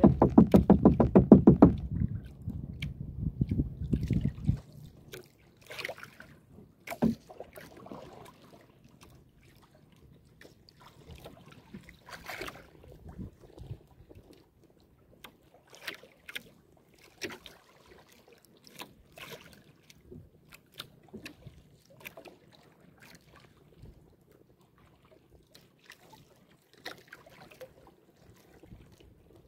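Hand-paddling a small wooden outrigger canoe on choppy sea: irregular splashes and knocks of the wooden paddle every second or two, with water sloshing against the hull. A louder pitched sound dies away over the first four seconds.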